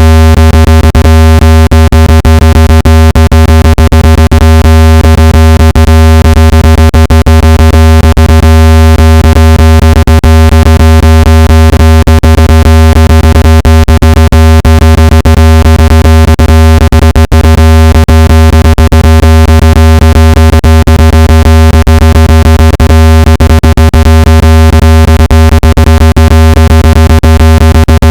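Speaker-cleaning tone for driving water out of a phone speaker: a very loud, steady, low buzzing tone with many overtones and a fast crackle running through it, holding one pitch without change.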